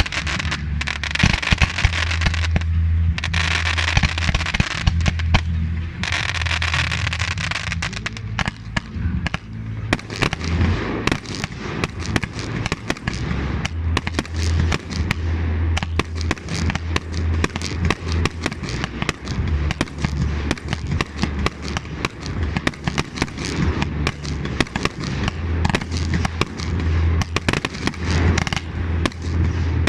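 Fireworks going off in quick succession. Hissing crackle for the first ten seconds or so, then a dense, rapid barrage of sharp bangs and crackles that runs on without a break, over a steady low rumble.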